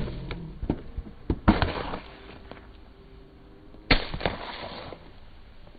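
Aluminium drink cans crushed under a rolling car tyre, bursting open: a sharp pop at the very start with a few cracks after it, a rush of spraying liquid about a second and a half in, and another loud pop and spray about four seconds in.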